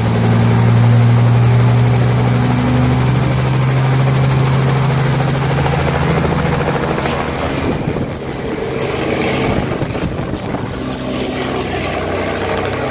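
Small two-bladed helicopter running on the pad with a steady engine and rotor hum, then lifting off a little over halfway through and climbing away, its sound changing and growing somewhat quieter.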